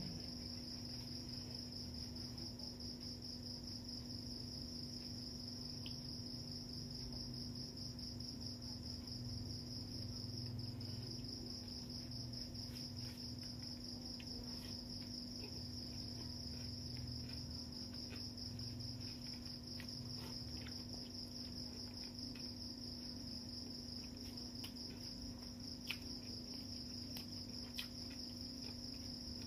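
Crickets trilling steadily at a high pitch, over a low steady hum. A few faint clicks of eating by hand from a plate come through, the clearest near the end.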